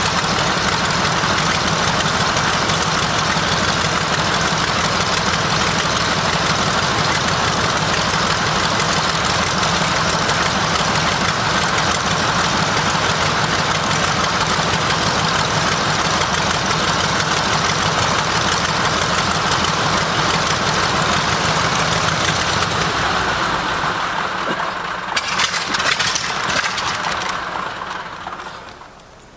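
Nakajima Sakae 14-cylinder twin-row radial engine of a Zero fighter running steadily on the ground during an engine run-up. Near the end it winds down and dies away as it is shut off.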